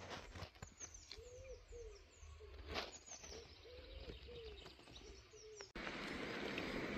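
A wild pigeon cooing in a soft, repeated phrase of low, rounded notes, with thin, high, falling chirps of small songbirds above it. About six seconds in, this cuts off abruptly into a steady rushing noise.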